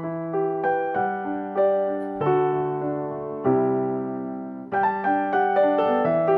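Background piano music: a gentle melody over chords, new notes struck every half second or so and left to fade.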